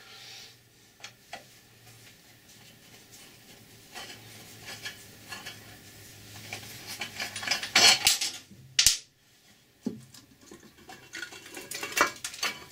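Metal clinking and scraping as the top cover of a Colchester lathe headstock is unscrewed and worked loose by hand. A few light clicks, then louder scrapes and rattles about two thirds of the way in and again near the end.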